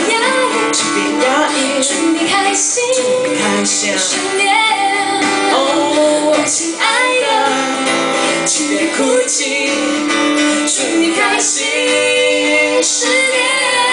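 A woman singing live into a microphone, accompanied by a steadily played acoustic guitar.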